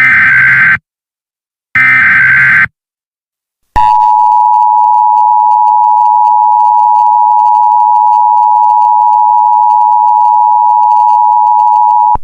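Emergency Alert System signals: two short digital header bursts of about a second each, then the two-tone EAS attention signal (853 and 960 Hz) held steady for about eight seconds. These signals announce an emergency alert broadcast.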